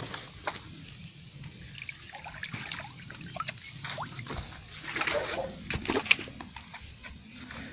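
Water splashing and trickling as a fish struck by a slingshot fishing dart is dragged out of shallow water onto the bank, with scattered knocks and rustles. It grows louder about five seconds in.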